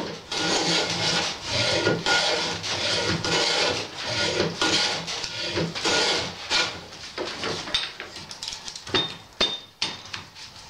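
Hand plane shaving along the edge of a split-firewood log held in a bench vise, in a quick run of repeated strokes. Near the end the strokes stop and a few scattered knocks follow as the log is handled.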